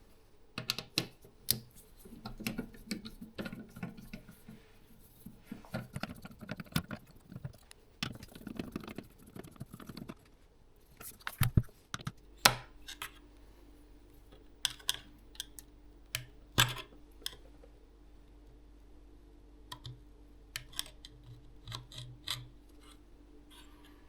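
Irregular clicks, taps and scratches of small tools and parts being handled while working on a car radio head unit, with a faint steady hum coming in about halfway through.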